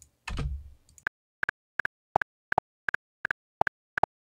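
A DAW click track playing back doubled: each click is followed a split second later by a second copy, about three pairs a second, because plugin delay compensation has been switched off and the delayed track no longer lines up with the original. A short dull thud comes just before the clicks start.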